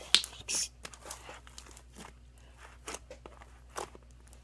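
A big mass of slime being mixed, giving short sticky pops and crackles, several close together in the first second and then scattered single clicks.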